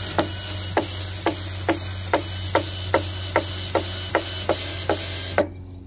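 Bosch 18V cordless drill running as it drills into a wooden block, with a regular sharp click about two or three times a second. The motor stops abruptly near the end.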